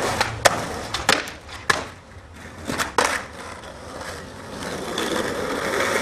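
Skateboard on street asphalt: about five sharp clacks of the board against the road in the first three seconds, over the noise of the wheels rolling. The rolling noise grows louder and steadier near the end.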